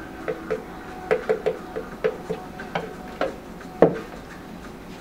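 Wooden stirring stick knocking and scraping against a plastic mixing cup as the last of the liquid is poured out: a run of light, irregular knocks. Near the end comes a louder knock as the cup is set down on the bench.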